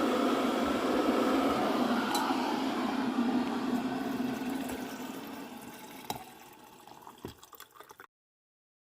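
Water rushing, loud at first and then fading gradually over several seconds, with a few light clicks near the end; it stops abruptly just before the end.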